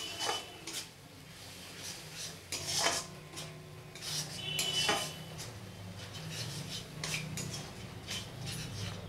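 Metal spatula scraping and stirring thick spice masala in a metal kadai, in irregular strokes. A couple of the strokes ring briefly against the pan, and a faint low hum runs underneath.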